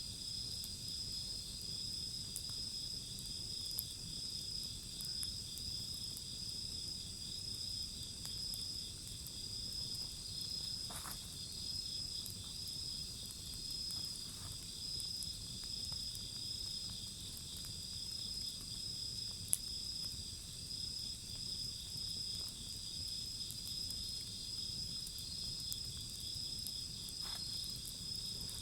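Steady high-pitched chorus of singing insects, with occasional faint pops and crackles from a burning wood fire; one sharper crack comes about twenty seconds in.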